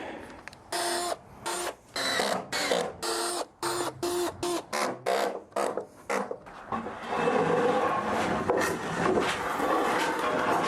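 A power drill driving a screw into the wooden frame: about ten short trigger pulses of the motor, then a longer continuous run from about seven seconds in.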